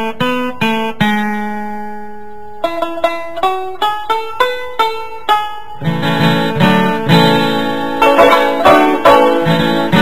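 Instrumental background music on plucked strings. Single picked notes, with one note held for about a second and a half near the start, give way to fuller, louder playing about six seconds in.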